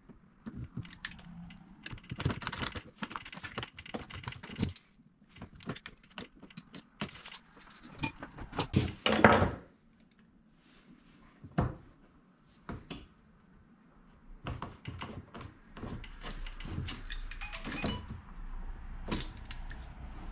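Irregular scraping, clicking and knocking of a hand tool cutting into and digging out old repair material in a polypropylene plastic gas tank, with a louder stretch of scraping about nine seconds in.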